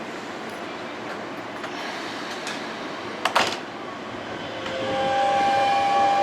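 Keisei line electric train approaching through the station. A sharp clank comes about three seconds in, then the train noise builds from about five seconds in, with a steady whine.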